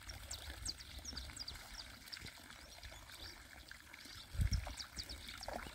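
Faint small splashes and trickling of fish taking floating feed pellets at the pond surface. Short high chirps run throughout, and there are a couple of low bumps about four and a half seconds in.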